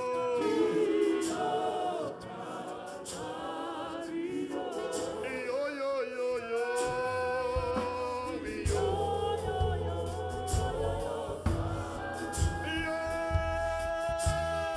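A gospel choir singing a slow hymn in long held notes, led by a male voice, with no instruments at first; low bass notes and drum hits join about halfway through.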